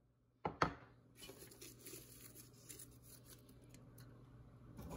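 Close handling noises from lemongrass stalks being laid on a raw chicken in a metal pot: a sharp knock about half a second in, then a run of small clicks and rustling.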